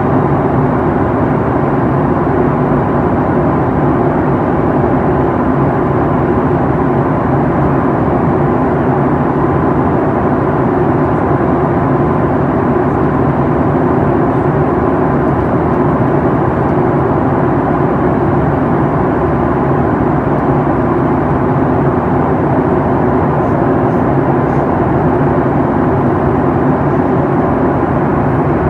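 Steady cabin noise inside a Boeing 737 MAX 8 airliner in flight: the even, low roar of its CFM LEAP-1B turbofan engines and the air rushing past the fuselage, with a faint steady hum.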